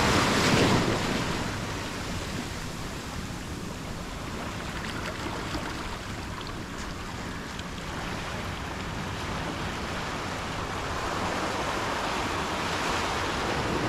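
Ocean surf washing on a sandy beach: a steady rush of waves, louder about the first second and swelling again near the end.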